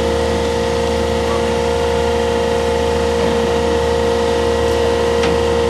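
Fishing boat's engine and deck machinery running with a steady, unchanging hum.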